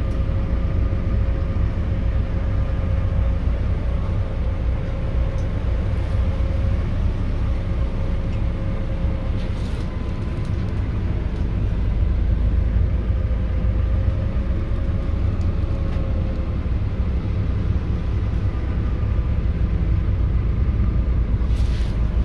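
A motor vehicle's engine and drive noise heard from inside the cabin: a steady low rumble with a faint hum, growing a little louder about halfway through.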